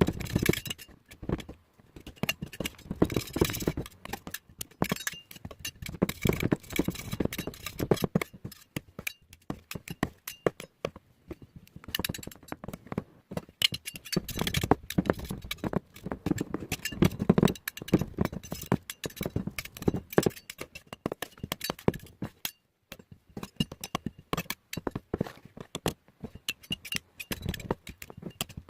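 Irregular clicks, taps and scrapes of small hard objects being handled, with occasional dull knocks.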